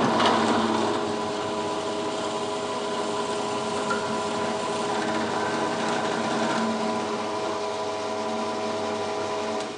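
Drill press running steadily with a constant motor hum and whine while drilling a hole.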